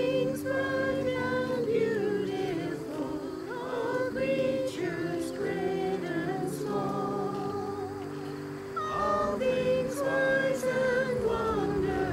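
Voices singing a hymn, with vibrato, over held accompanying chords.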